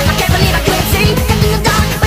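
Loud rock music with a driving drum beat.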